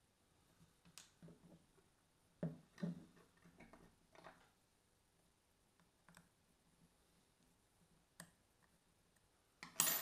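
Scattered small clicks and light knocks of a Daiwa 7HT reel's handle and small metal parts being worked with a small screwdriver on a wooden table, with a sharper clatter near the end.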